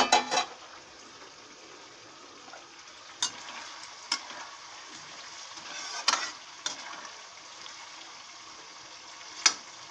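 Mixed vegetables sizzling in oil in a metal kadhai while a spatula stirs them, with a clatter at the start and several sharp clinks of the spatula against the pan, the loudest near the end.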